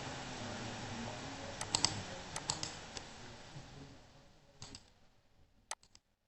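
Scattered computer mouse and keyboard clicks, in small clusters of two or three, over a faint hiss that fades away. The sound cuts off suddenly near the end.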